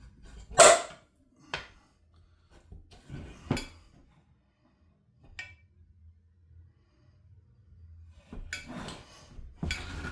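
Metal tools and engine parts clinking and knocking by hand: a sharp knock about half a second in, lighter knocks and a small clink, then a stretch of clattering and scraping near the end.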